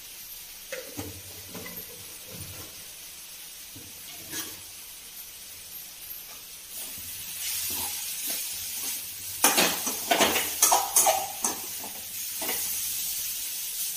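Spiced vegetables frying in a metal kadai: a sizzle that grows louder about seven seconds in, then a metal spatula scraping and clinking against the pan as the mixture is stirred over the last few seconds.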